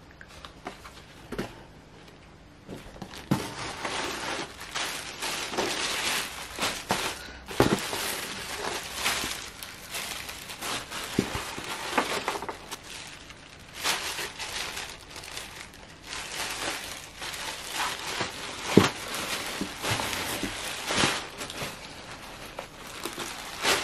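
Plastic mailer bags and tissue paper crinkling and rustling as they are handled and pulled out of a cardboard box. There are scattered sharp knocks, the loudest about 8 and 19 seconds in. The first few seconds are quieter.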